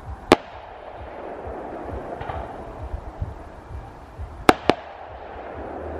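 Fireworks display: one sharp aerial shell burst about a third of a second in, then two more bursts in quick succession about four and a half seconds in, over a continuous bed of lower thuds and crackle from other bursts.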